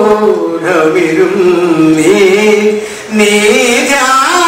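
A man chanting Malayalam verse in a slow, sung recitation, holding long notes that glide up and down in pitch, with a short break for breath about three seconds in.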